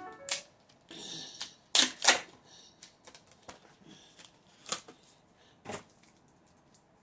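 Cardboard box and foil wrapper of a cream cheese block being torn open and unwrapped by hand: crinkling and sharp crackles, loudest twice about two seconds in, then a couple of single snaps.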